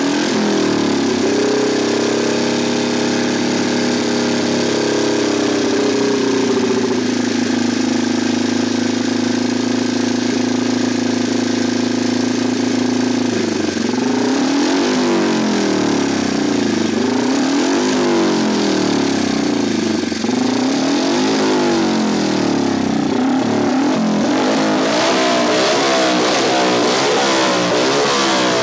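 A Manx Norton 500 cc single-cylinder racing engine running, held at a steady speed for about the first thirteen seconds. It is then revved again and again, the pitch rising and falling every second or two.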